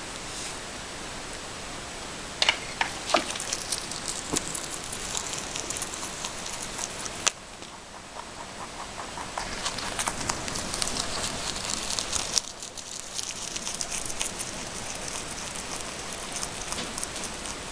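A rabbit chewing sweet basil leaves and stems: rapid, crisp crunching and crackling that stops twice for a moment, over a faint steady hiss.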